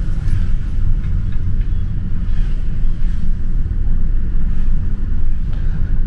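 Steady low rumble of a moving car, heard from inside its cabin.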